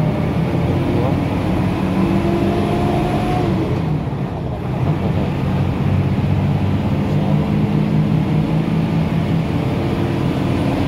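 A moving road vehicle's engine and road noise heard from inside it: a steady low drone that dips briefly about four seconds in.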